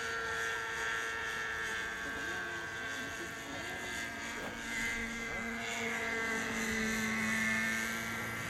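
Thunder Tiger Raptor 50 nitro RC helicopter flying overhead: a steady high buzz from its glow engine and rotors, the pitch shifting slightly as it manoeuvres.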